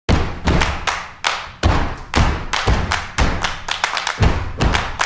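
Rhythmic heavy percussion hits, booming thuds with long noisy decaying tails, about two a second.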